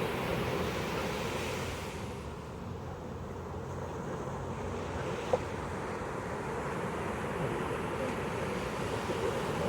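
Pacific surf washing onto a beach, a steady rush that eases off a couple of seconds in and builds again. A single short click about halfway through.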